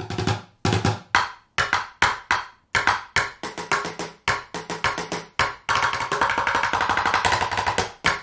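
Drumsticks striking two upturned plastic five-gallon buckets in a rhythmic groove. Some strokes are deep and hollow, others higher and sharper, as different parts of the buckets are hit. About two thirds of the way through the playing turns into a fast, dense roll for about two seconds.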